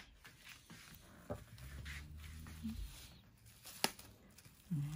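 Faint crinkling and rustling of plastic cling wrap as hands pull it tight around a rolled piece of meat, with one sharp click about four seconds in.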